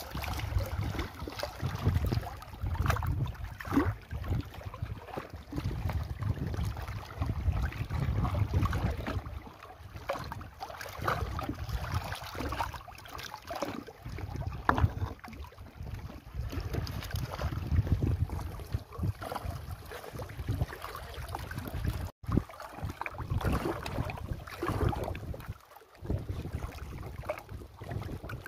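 Wind buffeting the microphone in gusts over choppy lake water lapping against rocks, with scattered short knocks and splashes.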